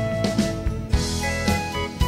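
Instrumental music with drums keeping a steady beat, about two hits a second, under sustained pitched instruments.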